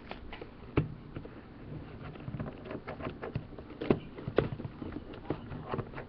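Fingers handling a cardboard toy box, picking and tapping at its taped end to get it open: a run of irregular clicks, taps and scrapes, the loudest about a second in and again around four seconds in.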